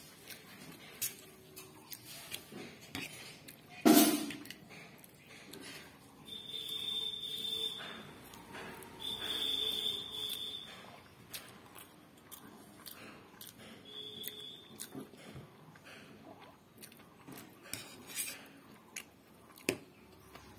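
Noodles being eaten with a metal fork: small clicks of the fork on the plate and mouth sounds of chewing and slurping, with one sharp clink about four seconds in. A thin, high steady whistle-like tone sounds three times, twice for about two seconds from around six and nine seconds in, and once briefly near fourteen seconds.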